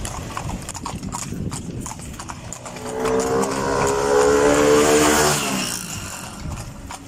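Hooves of a two-horse carriage clip-clopping on asphalt. About two and a half seconds in, a passing motor vehicle's engine swells to the loudest sound and then drops in pitch as it goes by.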